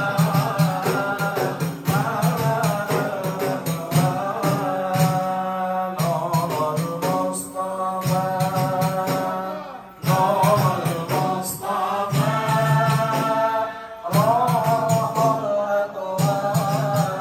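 Men's voices singing a chant-like devotional melody in phrases of about four seconds, over a steady, even percussion beat.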